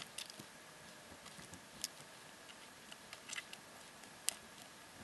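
Faint small clicks and taps, a few scattered over several seconds, with a little cluster about three seconds in and the sharpest one near the end, over quiet room tone.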